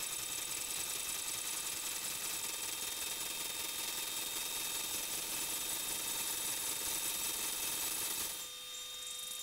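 Steady electronic hiss with a faint constant whine, dipping briefly about eight seconds in.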